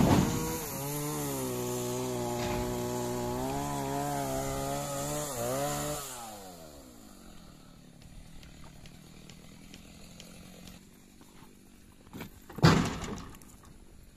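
Chainsaw held at high revs for about six seconds, then let off, its pitch sliding down as it winds down to idle. A single sharp knock near the end.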